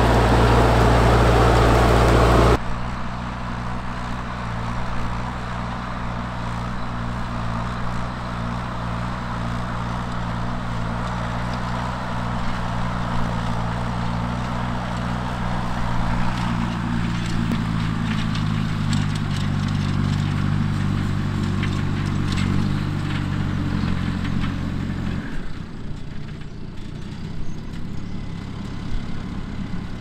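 Fendt 415 Vario tractor's six-cylinder diesel engine running steadily under load while pulling a reversible plough. The first couple of seconds are louder and harsher, and the engine note changes about three quarters of the way through.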